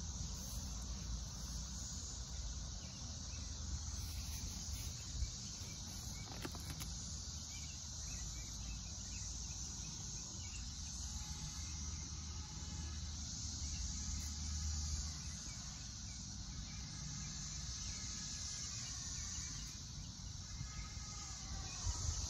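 Outdoor garden ambience: a steady high hiss over a low rumble, with faint chirps in the second half.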